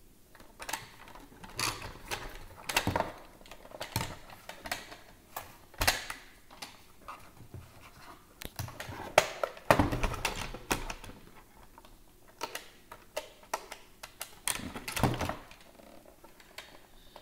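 Irregular clicks, taps and knocks of hands handling the plastic body of an iRobot Braava 380T robot mop as it is pressed, lifted and turned over, with a few louder bumps about ten and fifteen seconds in.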